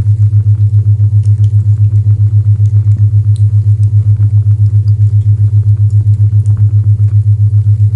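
Loud low isochronic tone, a deep hum pulsing on and off about seven times a second, with faint fireplace crackles ticking in the background.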